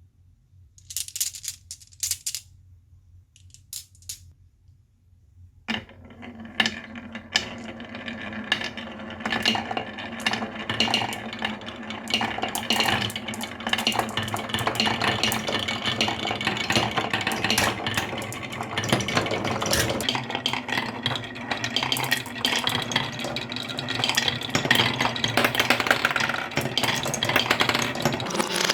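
Marbles rolling and clattering down a marble run: a few separate clicks at first, then from about six seconds in a dense, continuous rattle of many marbles that grows louder, over a low steady hum.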